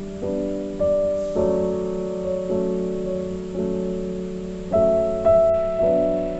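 Background music: soft piano chords struck one after another at a slow, even pace, each fading before the next.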